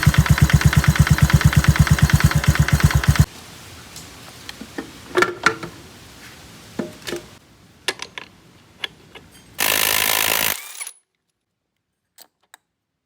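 Honda Vario 125 scooter's single-cylinder four-stroke engine idling with a deep, evenly pulsing exhaust, about ten beats a second: the 'klotok' knocking exhaust note that owners modify for. It cuts off abruptly after about three seconds, followed by faint clicks and knocks and a brief loud hiss near the end.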